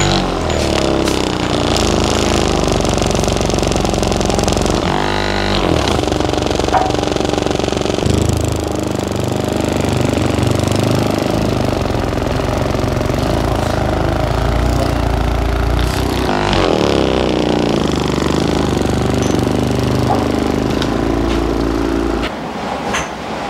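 Handheld percussion massage gun running steadily against a person's upper back, a loud motorized buzz of rapid hammering strokes. Its pitch shifts briefly about 5 seconds in and again around 16 seconds, and it stops shortly before the end.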